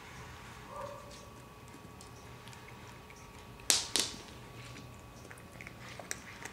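A cat crunching dry cat treats taken from a hand: two sharp crunches close together a little past halfway, then a few faint clicks of chewing.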